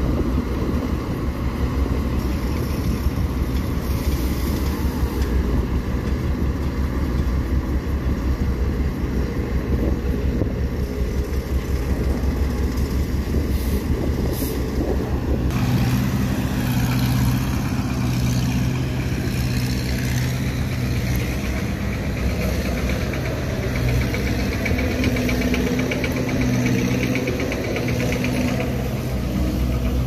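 Diesel engines of heavy earthmoving machines running with a rough low rumble. About halfway through it changes to a steadier engine hum at idle.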